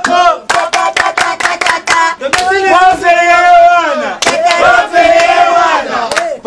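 Several people shouting and yelling loudly in long, drawn-out cries. A rapid run of sharp smacks sounds over the first two seconds, and a few single smacks come later.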